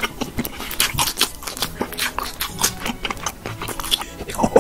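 Crunchy eating: many quick, irregular crackles of biting and chewing a crisp, breaded fried food, with music underneath.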